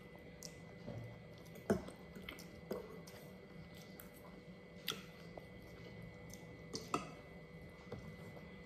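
Quiet eating sounds: mouth noises of chewing and slurping noodles, with a few sharp clicks and taps of cutlery on bowls and plates, the loudest about two seconds in and another near seven seconds.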